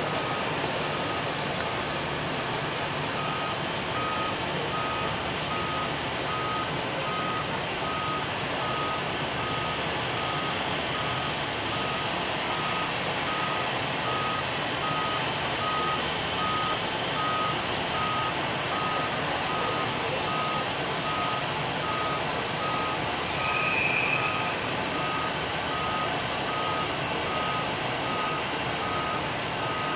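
Reversing alarm on an airport ground vehicle, such as the aircraft tow tractor, beeping steadily at about two beeps a second over a continuous roar of ramp machinery. A brief higher-pitched tone rises above it about three-quarters of the way through.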